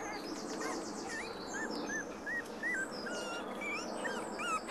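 Young cocker spaniel puppies whimpering, a string of short high-pitched squeaks about every half second.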